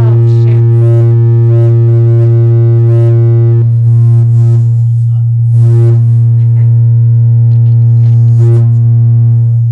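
Loud, steady electrical buzz through the sound system: a low hum with a stack of overtones, with faint handling clicks over it while a microphone is being fitted. It cuts off suddenly near the end.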